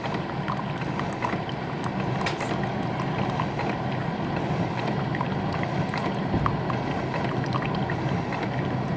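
Keurig K-Cup brewer (K425) brewing on its strong setting: a steady run of pump noise and hot coffee streaming into the cup, with small drips and clicks scattered through.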